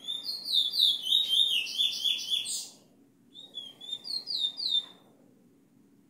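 Bullfinch singing its teacher song: two phrases of clear whistled notes, a longer phrase of about three seconds, then after a short pause a shorter one.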